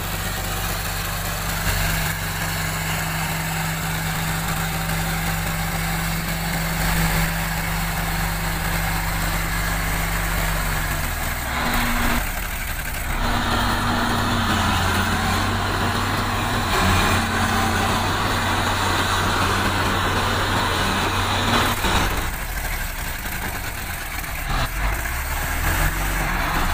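Heavy engines of a loaded log truck and the crawler loader pushing it up a muddy slope, running steadily under load. The engine pitch changes abruptly about eleven seconds in.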